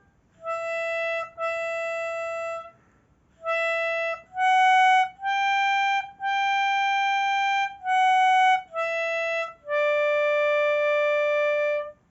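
Melodica played slowly, one held note at a time. Nine separate notes climb from E through F♯ to G and step back down, ending on a long D.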